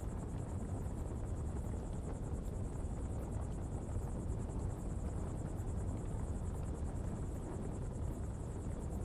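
Coal pottery fire burning with a steady low rushing rumble. A steady high insect trill of rapid even pulses runs over it.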